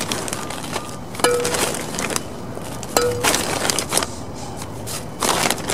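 Handfuls of potting soil mixed with perlite scooped and dropped into a pot, about four rustling pours.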